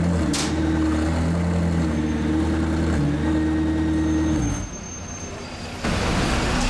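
McLaren P1 GTR's twin-turbo V8 idling steadily, then cutting off about four and a half seconds in. A louder rushing noise comes in near the end.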